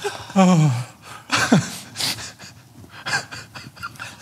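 Men laughing: a breathy laugh falling in pitch about half a second in, gasping breaths, then softer, quieter laughter.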